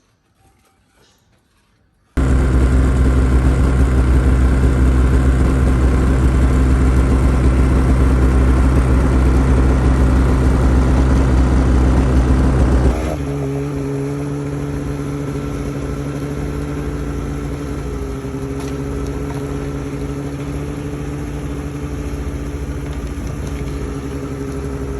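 A motor engine running steadily at a loud, even pitch, starting abruptly about two seconds in. About thirteen seconds in it gives way to a quieter engine sound at a different steady pitch that runs on.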